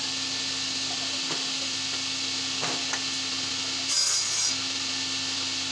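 Wood Styler sliding table saw running with its blade spinning, a steady hum; about four seconds in, the blade cuts briefly through a strip of laminated chipboard, a short, louder rasp of sawing.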